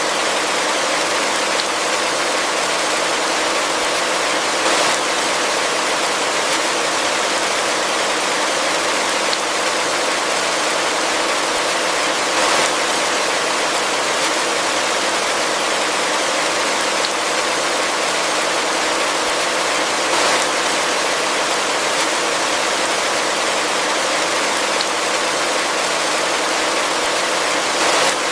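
Heavy rain falling steadily: a dense, even hiss with no let-up, swelling slightly for a moment about every eight seconds.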